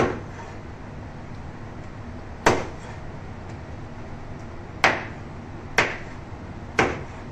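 Heavy chopping knife striking through raw broiler chicken pieces into a wooden cutting board: five sharp chops at uneven intervals, the last three close together.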